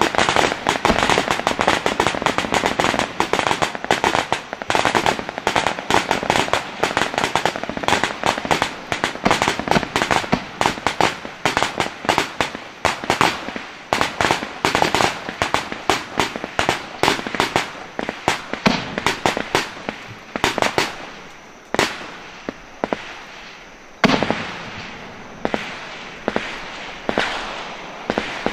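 A dense, rapid string of sharp cracks and bangs, many a second. After about fifteen seconds it thins into separate loud reports a second or so apart, each trailing off.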